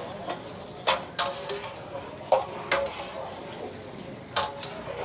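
A long metal stirring rod scraping and clanking against the wall of a large aluminium degh as beef is stirred in hot ghee and masala during the bhunai frying stage of nihari. Five sharp, ringing clanks come at uneven intervals over a steady hiss from the pot.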